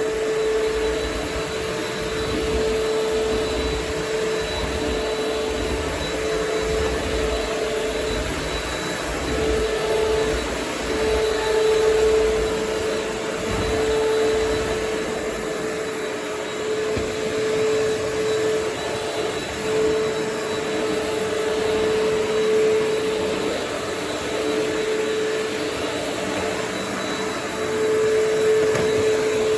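Hoover WindTunnel bagless upright vacuum running steadily with a constant whine, its brush roll switched off on the bare-floor setting.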